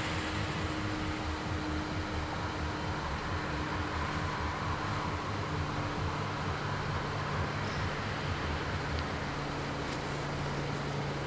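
Steady low engine hum and road noise at a closed level crossing, with a deeper drone growing stronger about halfway through as a diesel railcar draws near.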